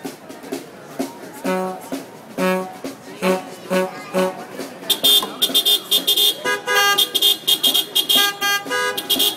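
Car horns played as a musical instrument, sounding tuned notes: a few separate honks about half a second to a second apart, then from about five seconds in a fast run of louder repeated horn notes.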